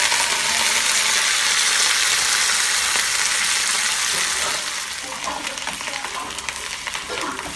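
Hot oil sizzling loudly in a small steel kadai where freshly added green chillies and coriander leaves are frying with dried red chillies. The sizzle eases off after about four and a half seconds into a quieter crackle with spoon stirring.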